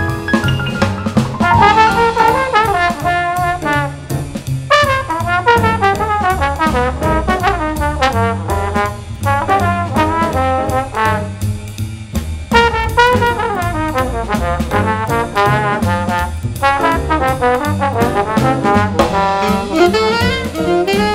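A jazz trombone plays a swinging improvised solo in melodic phrases over a rhythm section of upright bass, drums and piano. Near the end an alto saxophone takes over the lead.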